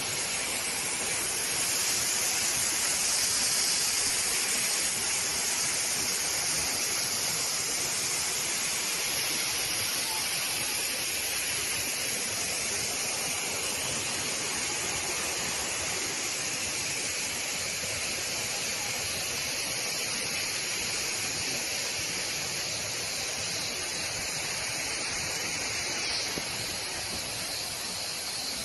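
Steady rush of falling water from a waterfall, an even hiss with no break.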